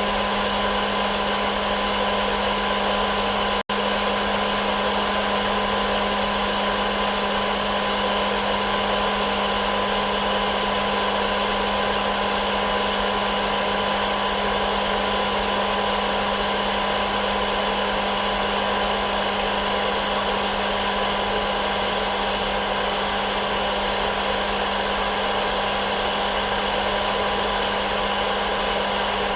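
Hair dryer running steadily as white noise: a continuous airy whoosh with a steady motor hum underneath. It cuts out for an instant about four seconds in, then carries on unchanged.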